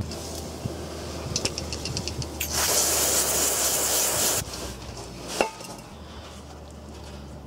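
Aerosol cleaner sprayed through a straw nozzle onto a transmission drain plug: a steady hiss lasting about two seconds, preceded by a few short rattling ticks. A single sharp clink follows a second later.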